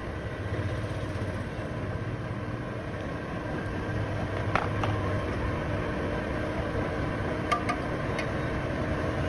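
Steady low mechanical hum, with a few light clicks from the plastic funnel and glass bottle being handled, about four and a half seconds in and again near the end.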